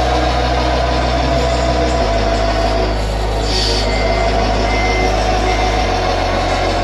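Diesel truck engine sound from the RC Volvo 8x8's sound module, running steadily and stepping in pitch twice, with a short air-brake hiss about three and a half seconds in.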